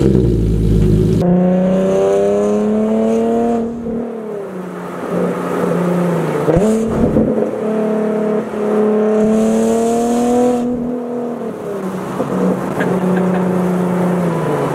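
Nissan 370Z's 3.7-litre V6 through a single-exit Tomei Ti titanium exhaust, pulling away and accelerating through the gears: the pitch climbs in each gear and drops back at three upshifts, then holds steady and eases off near the end.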